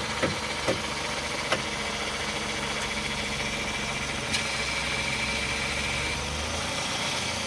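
Car engine idling steadily, with a few sharp clicks in the first couple of seconds, another click about four seconds in, and a thin high whine for about two seconds after it.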